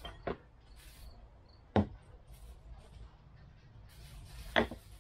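Chrome boat cleats being set down one at a time on a varnished wooden deck: a few short, sharp knocks, the loudest about two seconds in and another near the end, with faint rustling of handling between.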